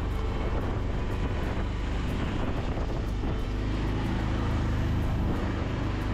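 Tuk-tuk driving fast with open sides: steady wind rush on the microphone over the vehicle's running and road noise.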